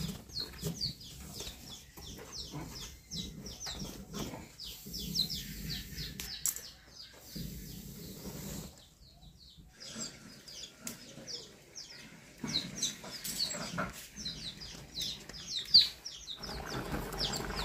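Chicks peeping: short, high, falling chirps repeated over and over, with a brief pause in the middle and a few soft knocks.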